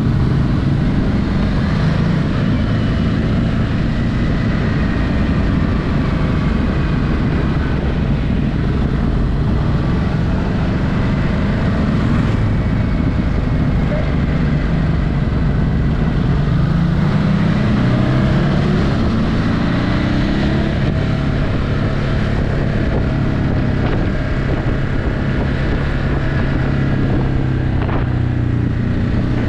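Ducati Hypermotard 950's 937 cc L-twin engine on its stock exhaust, heard on the move at cruising revs, with wind noise on the microphone. The engine note climbs in pitch as the bike accelerates about two-thirds of the way through, then holds steady.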